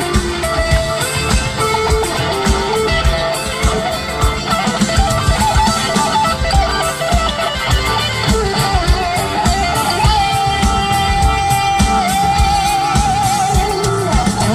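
Rock band playing live: a lead electric guitar plays melodic phrases over steady drums and bass. In the last few seconds the guitar holds one long note with vibrato.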